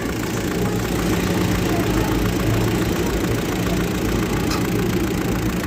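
Hino truck diesel engine idling steadily. The number 4 injector nozzle, which had been blowing out past a failed O-ring, is now tightened and no longer gives its loud blow.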